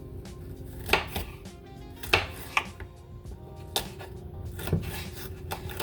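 A kitchen knife chopping a green bell pepper on a cutting board: several separate chops at an uneven pace, over soft background music.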